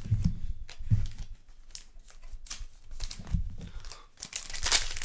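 Foil wrappers of 2021 Donruss Baseball hobby card packs being torn open and crinkled by hand, with a few soft knocks of cards being handled, and a longer tearing sound near the end.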